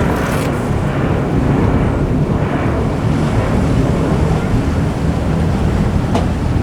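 Wind buffeting the microphone over the steady rumble of boat engines and waves in a rough inlet, with one brief tick near the end.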